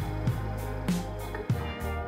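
Background music with a steady beat over sustained bass notes.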